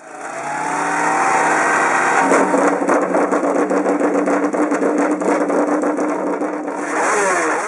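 Engine running steadily and loudly, then revving up near the end.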